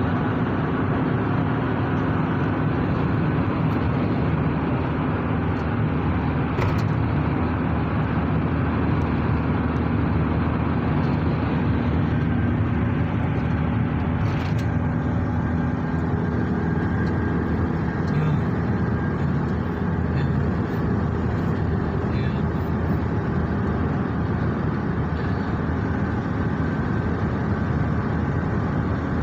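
Steady road and engine noise of a moving car, heard from inside the cabin, with a low, even hum and no change in speed.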